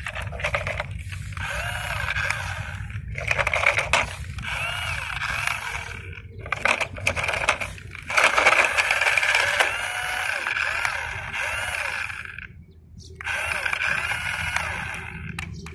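Toy RC dump truck's small electric motor and gearbox whining as it drives over gravel, the pitch rising and falling with the throttle. It stops briefly a few times.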